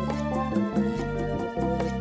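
Music with a steady, fast ticking beat over a bass line and sustained keyboard notes.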